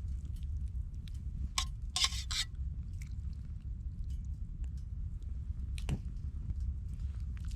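Wood fire crackling: a few scattered sharp snaps, a cluster about two seconds in and another near six seconds, over a steady low rumble.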